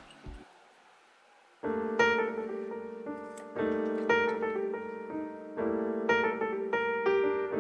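Background piano music, coming in about a second and a half in after a near-quiet start, with notes struck at a steady, gentle pace.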